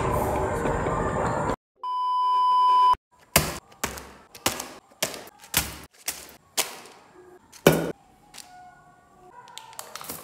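Dense background noise cuts off abruptly, then a steady beep-like test tone of the kind played with TV colour bars sounds for about a second, growing louder. After it comes a run of sharp knocks about two a second, each dying away quickly.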